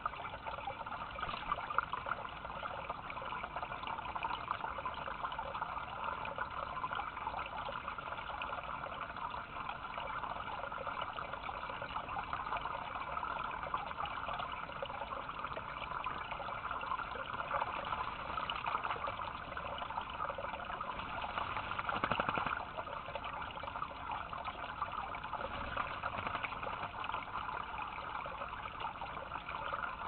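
Water trickling steadily from a small stone water feature into a shallow bird-bath dish, with a brief louder splash about two-thirds of the way through.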